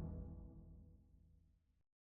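Background music fading out, its last held notes dying away within about a second into near silence.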